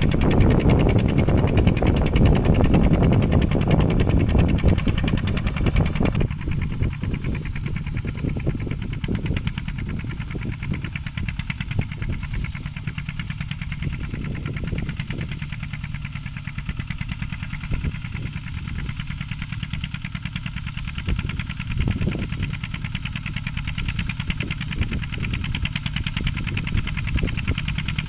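Mini farm tractor's engine running steadily under load while plowing, with a fast even firing pulse. It is louder for the first six seconds, then drops suddenly and carries on quieter.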